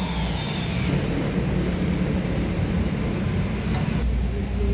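Steady low rumble of road traffic, with a passing vehicle's falling-pitch whine fading out within the first second.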